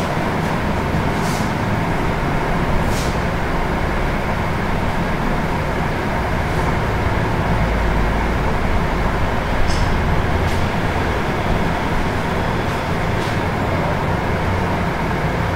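Steady background noise with a few short swishes of a hand wiping a whiteboard clean.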